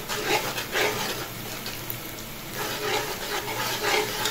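Sliced onions sizzling as they fry in hot oil, just starting to brown, while a metal slotted spoon stirs and scrapes against the metal pot. The stirring strokes are busier at the start and again in the second half, with a quieter sizzling lull of about a second and a half between.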